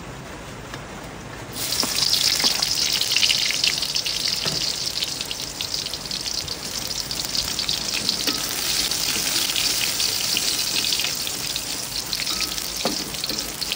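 Hot oil in a steel wok starts sizzling loudly about a second and a half in as sliced shallots go in, then keeps frying with crackles while a metal spatula stirs, with a few taps of the spatula on the wok.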